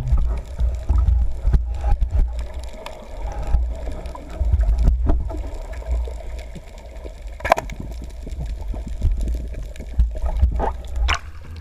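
Water sloshing and gurgling against a boat, over a strong uneven low rumble, with a few sharp knocks, the clearest one about seven and a half seconds in.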